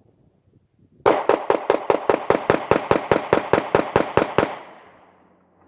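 Ruger SR9C 9mm compact pistol fired as fast as possible: a rapid string of about seventeen shots, roughly five a second, emptying an extended 17-round magazine. It starts about a second in and ends after about three and a half seconds, the echo fading away.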